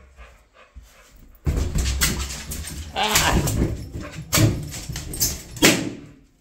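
A pit bull biting and pawing at a giant latex balloon: squeaks and scrapes of the rubber, with several sharp snaps, the loudest just before the end.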